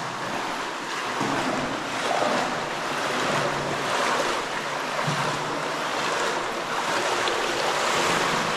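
Cave river water sloshing and splashing in a continuous wash that swells and eases, as people wade through the deep water.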